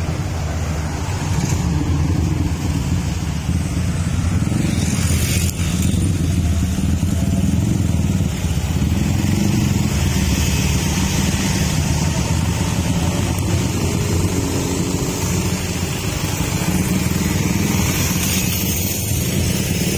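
Motorcycle engines running steadily close by, with cars and motorbikes passing on the road.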